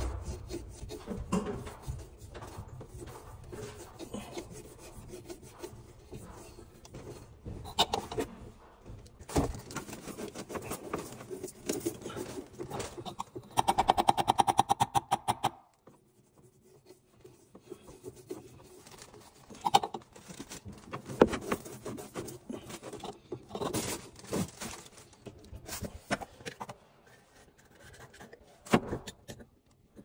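Handling noises of PVC plumbing work: rubbing and scraping of the primer dauber and PVC pipe, with scattered clicks and knocks. About halfway through, a rapid buzzing rattle lasts about two seconds.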